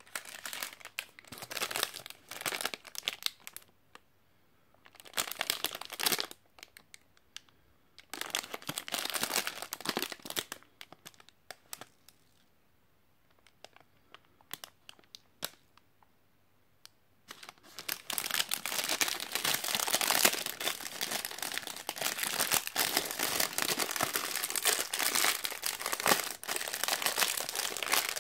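Crinkling of a sealed protein bar's metallised plastic wrapper as it is picked up and turned over in the hands. It comes in short bursts with pauses during the first half, then goes on almost without a break for the last ten seconds or so.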